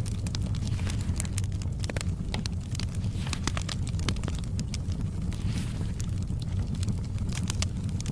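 Wood fire in a fireplace crackling: frequent sharp irregular pops over a steady low rumble.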